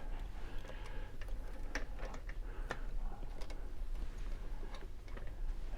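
Light, irregular clicks and taps of a padlock and keys being handled.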